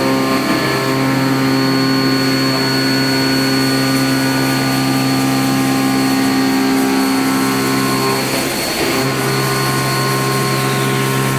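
Okuma Genos M560-V vertical CNC machining centre running, a steady whine of several tones from the spindle and drives. The tones break off briefly about two-thirds of the way through, and the highest tone falls away near the end.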